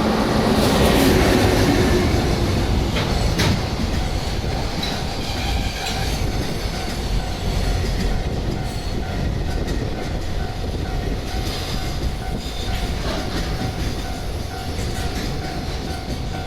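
Train passing close by a level crossing, its wheels running over the rails, loudest about a second in and then holding steady. A level-crossing alarm sounds throughout with a steady repeating tone.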